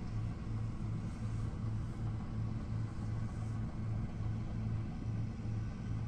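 Preet 987 combine harvester running while harvesting wheat: a steady low engine and threshing drone that throbs about twice a second.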